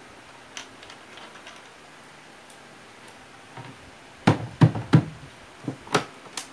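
Knocks and clicks of a screwdriver and screws against a speaker cabinet and its horn as the horn is screwed into the baffle: a few faint clicks, then a run of sharp knocks in the second half.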